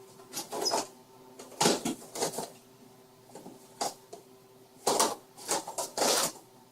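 Tools and small objects being handled and set down: a run of irregular rustles and clacks, with a faint steady hum underneath.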